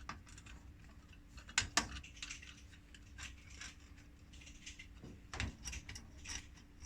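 Screwdriver and small metal and plastic parts clicking and scraping as the screw is taken out of the back of a vending machine tray's disc coupler. Irregular light clicks, the sharpest knocks about a second and a half in and again about five seconds in, over a faint steady hum.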